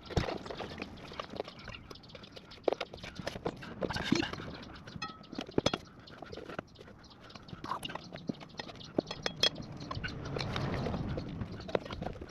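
Irregular clicks and knocks of metal tyre levers against a motorcycle wheel rim as a tyre is worked onto it, with a spell of rubber rubbing near the end.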